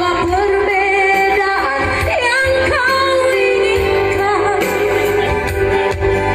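A woman singing into a handheld microphone over amplified instrumental backing, her voice gliding and wavering over steady held chords and bass.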